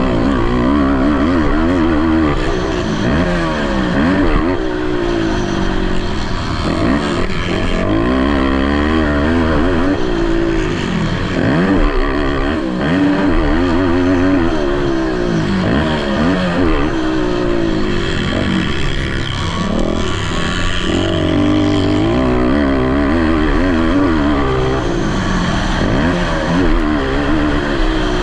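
Racing ATV (quad) engines revving hard, the pitch climbing and dropping again and again through throttle and gear changes, with more than one engine heard at once.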